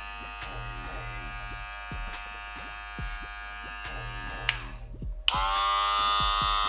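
A gold Lipfis cordless hair clipper runs with a steady electric buzz and is switched off with a click about four and a half seconds in. Less than a second later a louder clipper, the Wahl Senior cordless, switches on and runs with a stronger, steady buzz. The gold clipper is the quieter of the two because of its smaller motor.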